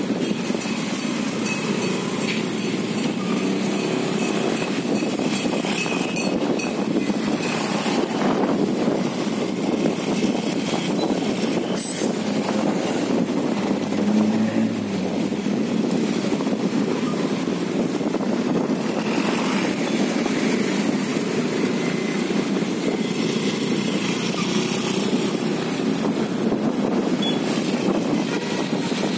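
Steady road-traffic noise from a slow-moving motorcycle: its small engine running and tyre and wind noise, with the rumble of idling buses and cars close alongside. A brief low tone about halfway through.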